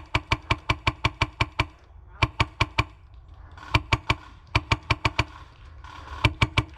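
Airsoft rifle firing rapid shots, about six a second, in four strings with short pauses between them.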